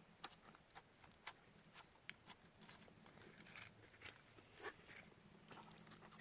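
Faint, irregular sharp clicks and pops of clear slime being squished and worked by hand, over a dozen small clicks spread unevenly through the stretch.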